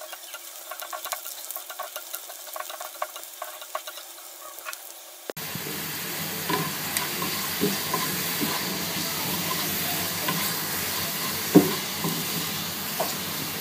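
Chopped onion and garlic frying in hot oil in a pan: a steady sizzle with the small scrapes and clicks of a spatula stirring them as they brown for a tempering. About five seconds in the sizzle jumps suddenly louder.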